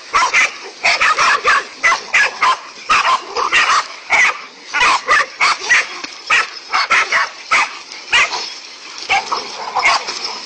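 A dog barking over and over in quick runs of short barks, about three a second, with brief gaps between runs.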